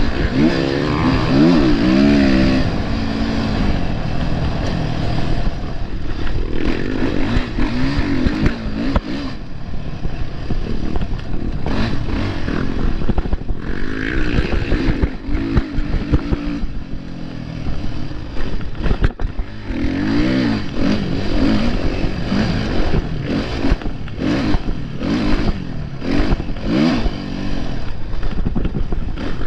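Motocross dirt bike's engine revving hard and easing off again and again as it is ridden around a dirt track, its pitch rising and falling with the throttle and gear changes, heard close up from the bike itself.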